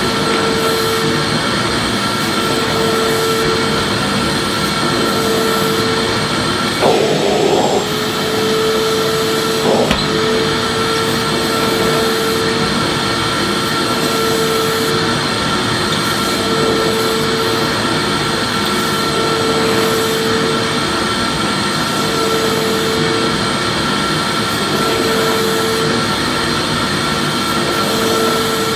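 Vacuum cleaner motor running steadily: a loud, even rushing hiss with a fixed high whine. A lower hum fades in and out every couple of seconds. A brief louder rattle comes about seven seconds in, and a click about three seconds later.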